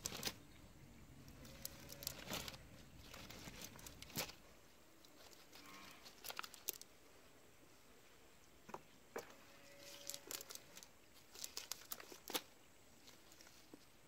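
Faint, scattered rustling and crackling of a wet nylon cast net and the mud and leaf debris tangled in it being handled, in short clusters of clicks. Twice a faint short call sounds in the background.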